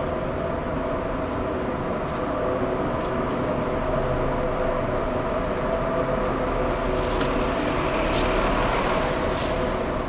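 Close street traffic: the steady hum of idling trucks and vans alongside, with a few faint clicks.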